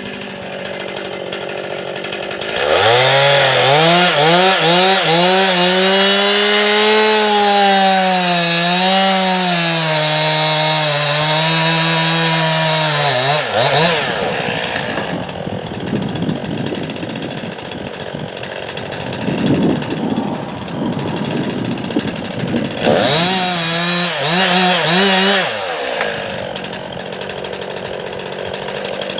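Chainsaw engine idling, then run at full throttle for about eleven seconds as the bar tip bores into a tree trunk in a plunge cut, its pitch dipping and wavering under load. It drops back for several seconds, then revs hard again for about three seconds before falling back to idle.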